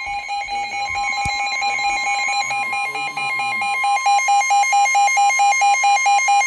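Weather alert radios going off together: the steady NOAA Weather Radio warning alarm tone, with the radios' own alarm beeping over it about four times a second, louder from about four seconds in. The tone is the alert signal that comes before a warning message.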